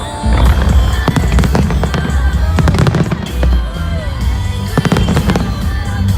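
Fireworks display going off in rapid bangs and crackles over loud music.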